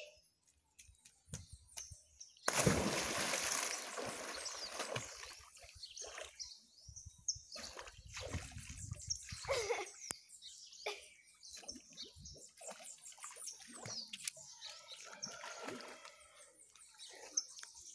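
A child jumping into a swimming pool: one loud splash about two and a half seconds in, then the water sloshing and the smaller splashes of her swimming strokes.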